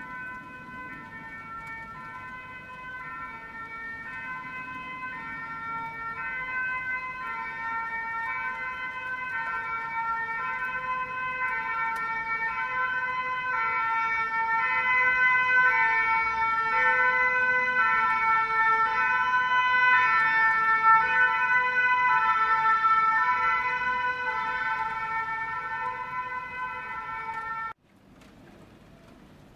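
Belgian emergency vehicle's two-tone siren alternating between a high and a low pitch. It grows steadily louder towards the middle, eases off a little, then cuts off suddenly near the end.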